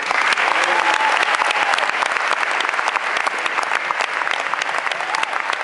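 Audience applauding: many hands clapping densely, breaking out all at once, with a few faint voices among it.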